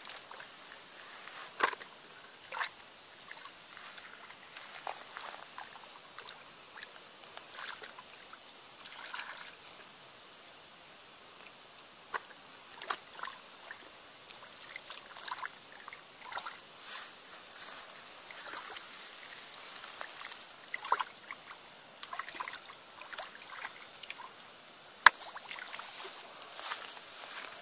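Hands sloshing and squelching in shallow muddy water while groping for fish, with scattered small splashes and a sharp click near the end.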